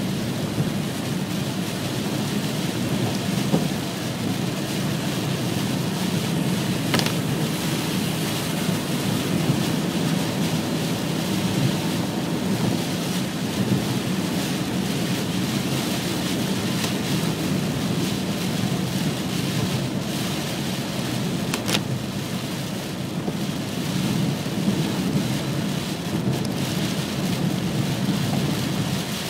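Heavy rain on a moving car, heard from inside the cabin, mixed with the steady noise of tyres on a wet road. Two sharp clicks stand out, about 7 and 22 seconds in.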